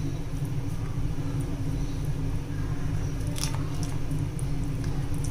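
Silicone pastry brush dabbing and spreading a soft butter-spice paste over split lobster meat: soft, wet squishing sounds with a light click about three and a half seconds in, over a steady low hum.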